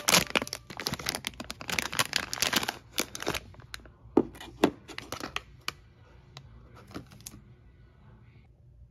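Foil blind-box pouch being torn open and crinkled by hand: dense crackling for about the first three and a half seconds, then a few scattered crinkles and clicks that stop about seven seconds in.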